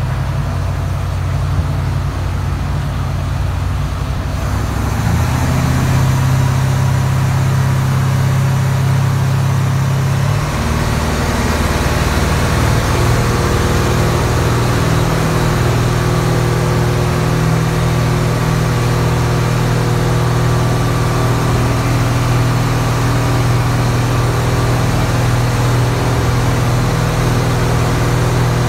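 Inboard engine of a Lyman wooden cabin boat, heard from inside the cabin, running under way with water and wind rushing past the hull. The engine note steps up about five seconds in and again about ten seconds in as the boat picks up speed, then holds steady.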